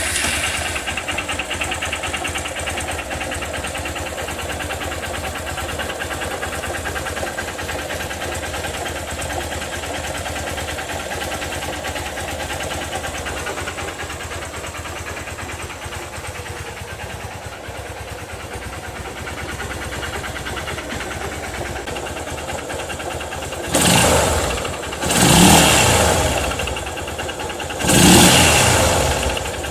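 Honda CG Titan 150 motorcycle's single-cylinder engine idling with a strange noise in it, then revved in three short blips near the end.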